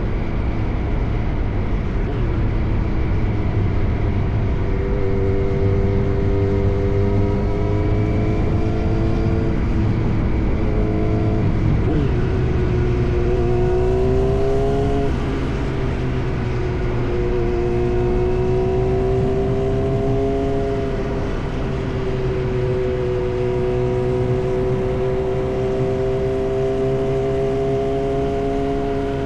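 Yamaha R1 sport motorcycle with an SC-Project exhaust, running at steady cruising revs with a low rumble. About halfway through, the revs rise quickly and drop back, then hold steady again.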